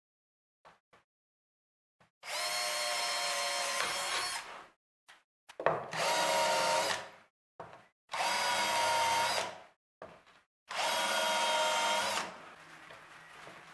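Cordless drill running in four bursts of about one and a half to two and a half seconds each, with short clicks in the pauses between them.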